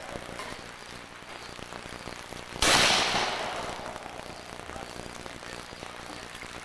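A single shot from a black-powder cap-and-ball revolver: one sharp report about two and a half seconds in, fading away over a second or so.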